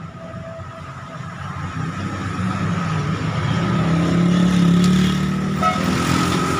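Motor vehicle engine running nearby, its low rumble building to a peak about four to five seconds in, over a steady high-pitched hum.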